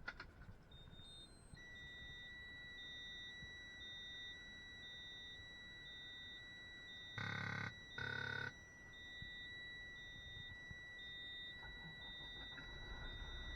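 Electronic warning beeps: a steady high-pitched tone and a second tone pulsing about twice a second. About halfway through come two short, loud buzzing bursts.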